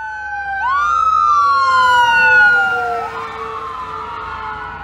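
Ambulance siren wailing as the ambulance drives past. Each cycle rises quickly and falls slowly, about every two and a half seconds. It is loudest a little past the middle, then fades as the ambulance moves away.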